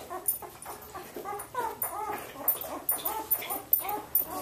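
Eleven-day-old Samoyed puppies whimpering and squeaking: a run of short, high cries that rise and fall, about three or four a second.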